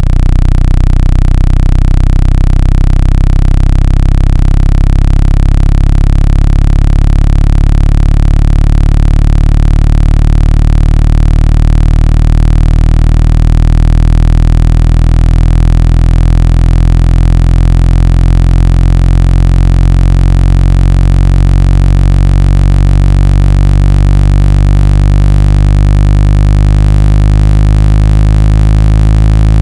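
Speaker-cleaning tone: a loud, steady, low-pitched synthesized buzz with many overtones, played through a speaker to vibrate its membrane and shake out trapped water and dust.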